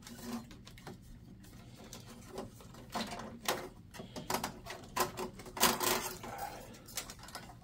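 Irregular clicks, taps and rustling of cables and connectors being handled inside a steel computer tower case. The clicks come thicker from about two and a half seconds in.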